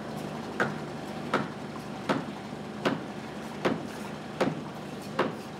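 Rhythmic hammer blows driving wooden chocks under the end of a newly hung lock gate, a strike about every three-quarters of a second, over a steady engine hum.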